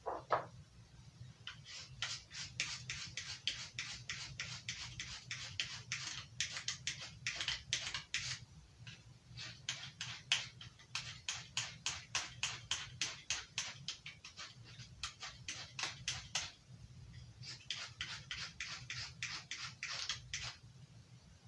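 Knife blade stroked again and again along a fine-grit sharpener: short scraping strokes, about three a second, in long runs with a brief pause about two-thirds of the way through.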